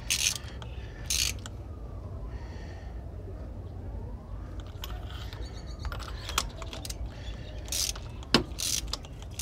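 Hand ratchet wrench with a socket extension clicking in short bursts of strokes, with a quieter pause in the middle, as bolts on an engine's valve cover are fastened.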